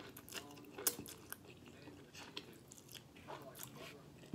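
Close-up mouth sounds of a person eating creamy chicken Alfredo pasta: taking in a forkful of noodles and chewing, with wet smacks and clicks. A sharp click about a second in is the loudest.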